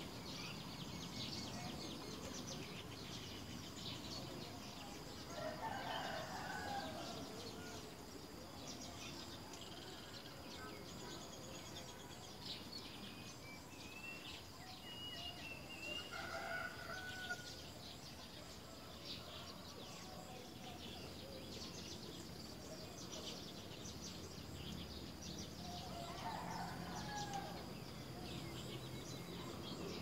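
Outdoor bird ambience: three louder calls about ten seconds apart, over a background of short high chirps and a faint steady high-pitched insect drone.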